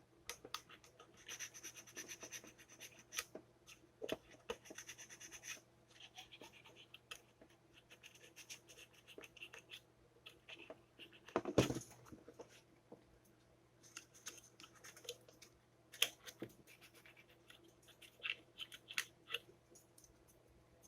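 Faint hand work on a toaster's parts: scratching and rasping with scattered clicks and small knocks, and one louder knock about halfway through.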